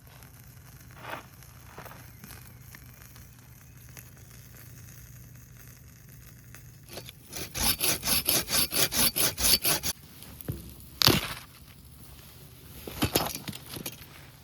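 Hand pruning saw cutting through a branch in a quick run of about a dozen strokes, about five a second, followed by a single sharp knock of wood and a shorter burst of scraping.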